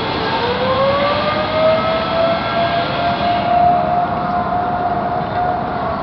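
Distant outdoor lahar warning sirens, mainly Federal Signal 2001s, sounding a scheduled test: a wailing tone that rises in pitch over the first couple of seconds and then holds steady, over constant background noise.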